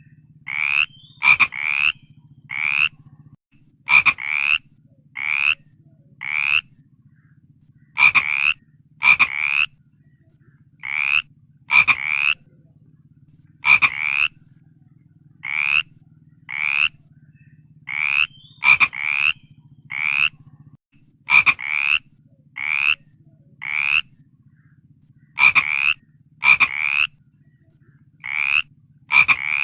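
Frogs croaking in short, slightly rising calls of about half a second each, repeating roughly once a second. Sharp clicks are mixed in, over a steady low hum.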